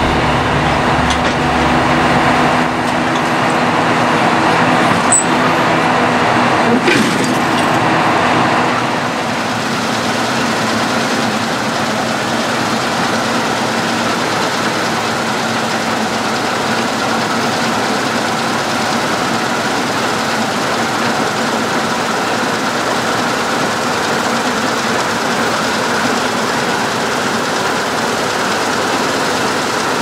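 Claas Lexion 670 TT combine harvester running as it cuts and threshes wheat: a continuous engine and machinery drone that changes and settles slightly quieter about nine seconds in.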